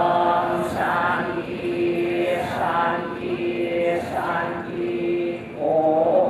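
A crowd chanting a Hindu devotional mantra together, its phrases held on one steady reciting pitch with short breaks between lines.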